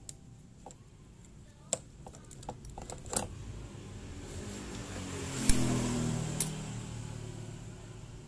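Scattered metal clicks and clinks of a spark plug wrench and spark plug being worked out of a Yamaha Mio Sporty scooter's cylinder head, with one sharp click about five and a half seconds in. A low hum swells midway and fades.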